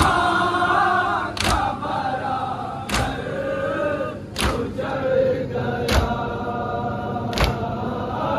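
A large crowd of male mourners singing a nauha in unison, marked by a loud, synchronized matam chest-beat of many hands about every second and a half, five strikes in all.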